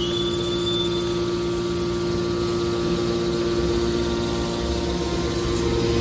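Hydraulic power unit of a scrap metal baler running: electric motor and pump giving a steady hum with a strong mid-pitched tone. A higher whine dies away about a second in, and a deeper hum comes in near the end.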